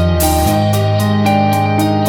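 Background music: an instrumental passage with keyboard and a steady beat, the bass note changing about half a second in.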